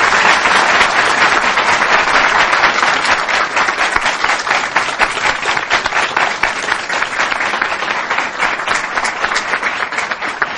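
A large seated audience applauding, with many hands clapping together in sustained, dense applause that eases slightly near the end.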